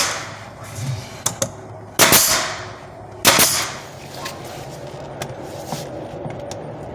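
Nail gun firing twice, a little over a second apart, each shot a sharp crack followed by a short hiss.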